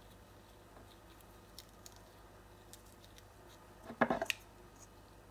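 Courgette flowers being pulled apart by hand: faint handling, then a short cluster of crisp crackles and snaps about four seconds in as the petals and stem tear.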